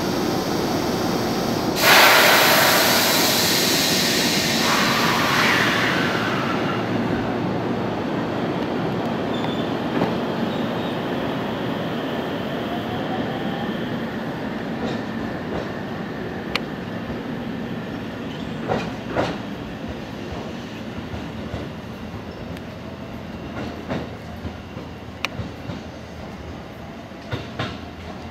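Four-car electric commuter train departing a station: a loud hiss of air about two seconds in, then running noise that fades steadily as the train pulls away, with sharp wheel clacks over the rail joints in the later part.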